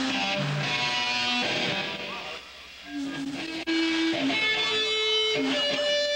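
Electric guitar played live through an amplifier in a hardcore band's set: held, ringing notes that change every half second or so, with a brief drop in level about two and a half seconds in.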